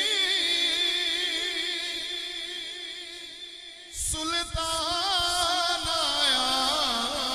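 Male naat reciter singing a long, wavering held phrase with no instruments. It fades about four seconds in, and a new phrase starts with a few low thumps.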